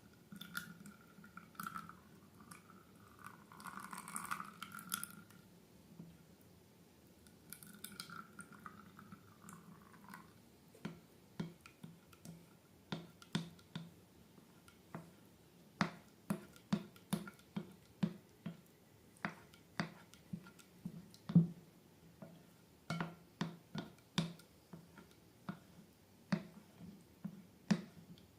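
Slime being handled and squished: soft rustling and hissy sliding sounds at first, then from about the middle a quick run of short wet clicks and pops as the slime is pressed and worked.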